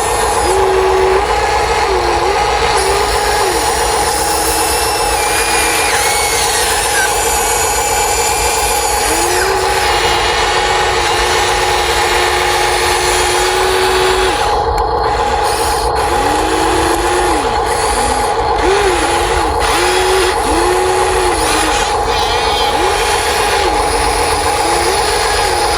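Small electric motors of RC toy construction machines running in short spells, each whine rising in pitch, holding, then falling as a motor starts and stops, over a steady hum.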